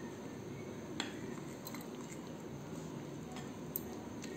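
Metal spoon stirring flour and custard powder into a wet milk mixture in a glass bowl: soft scraping with a couple of light clicks of spoon against glass.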